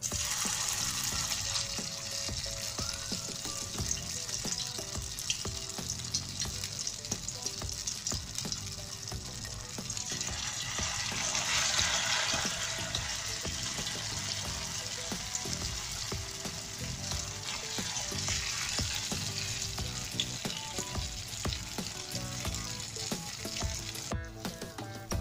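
Tofu perkedel (mashed-tofu fritters) sizzling as they fry in hot oil, briefly louder about halfway through.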